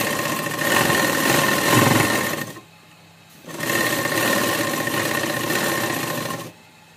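Sewing machine stitching a seam through cloth in two runs. The machine stops for about a second about two and a half seconds in, then starts again and stops shortly before the end.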